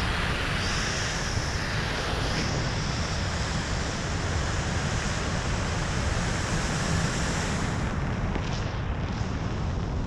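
Wind rushing and buffeting over the camera microphone during a parachute descent under an open canopy, a steady roar with a high hiss on top that stops about eight seconds in.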